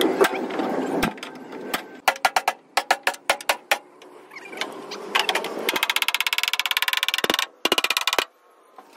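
Hammer blows on the steel panel of a truck cab: a string of sharp metal strikes, then about two and a half seconds of fast, even tapping, roughly ten a second, that stops abruptly.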